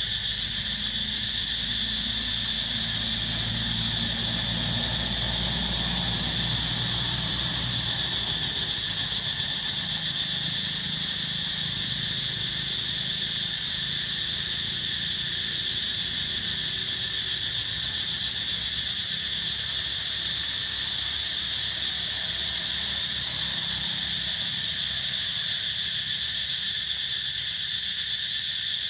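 Steady, unbroken insect chorus: a continuous high drone of many insects calling together, with a faint low rumble under it in the first several seconds.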